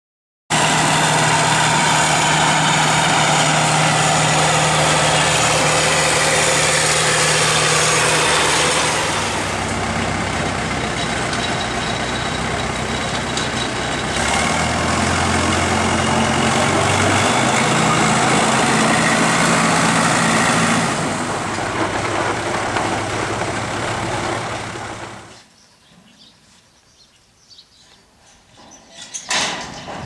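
Diesel engine of a small crawler dozer running at a steady pitch that shifts up and down a few times. It cuts off suddenly about 25 seconds in, leaving a faint background with a brief louder noise near the end.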